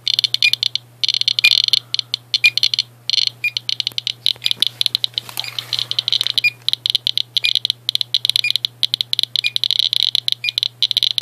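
Geiger counters clicking rapidly and irregularly, a dense random crackle of counts from radiation detected in uranium-doped Vaseline glass. Under the clicks there is a faint steady hum and a short faint beep about once a second.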